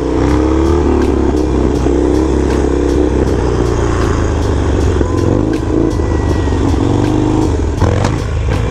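Harley-Davidson Roadster 1200's air-cooled V-twin running steadily under way, its note rising and falling slightly with the throttle.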